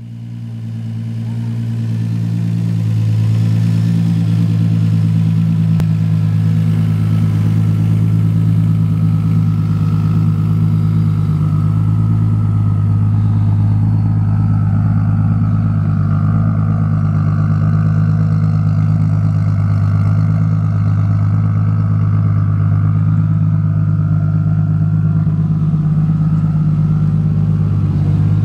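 Toyota Supra's single-turbo inline-six idling steadily with a low, even note.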